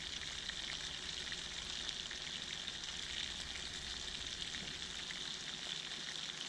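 Meat frying, sizzling steadily with faint crackles: the first browning stage of a pilaf-style rice and meat dish.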